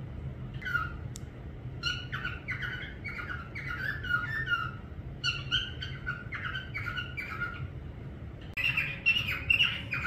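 Parrot whistling and chirping in a quick run of short gliding notes, pausing briefly and coming back louder near the end, over a steady low hum.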